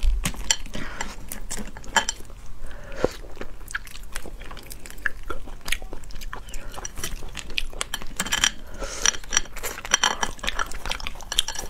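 Boiled crayfish shells being cracked and peeled apart by hand close to the microphone: a dense run of crackles and snaps, with chewing of the meat.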